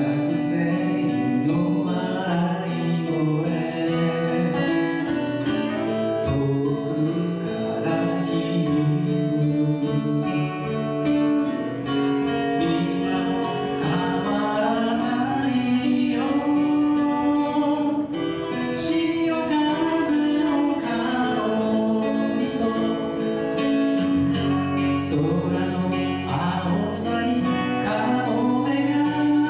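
Live acoustic folk music: acoustic guitars strummed and picked, with a voice singing over them.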